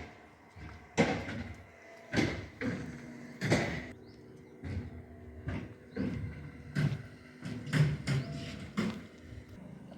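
A series of sharp knocks and clatters, roughly one a second, each ringing briefly.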